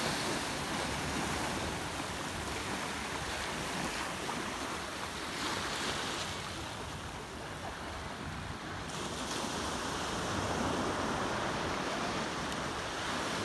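Small ocean waves washing over rocks and sand, with wind buffeting the microphone.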